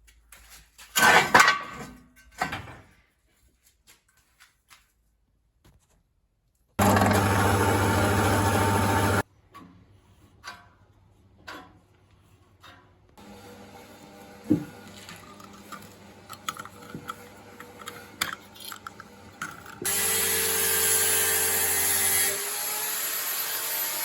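Diesel engine of a homemade generator running steadily in short stretches that start and stop abruptly, with knocks and clatter between them.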